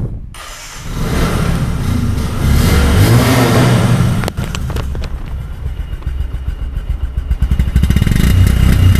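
Bajaj Discover 125 single-cylinder four-stroke motorcycle engine started on the electric starter, catching within about a second, then revved with the throttle a few times; it drops back briefly about four seconds in and revs again near the end.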